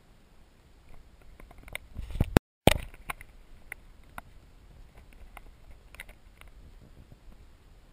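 Underwater lake ambience picked up by a submerged camera, with scattered small clicks and ticks. About two seconds in a loud low rumble builds, cuts out for a moment of dead silence, and resumes with a loud knock before settling back to the quiet ticking.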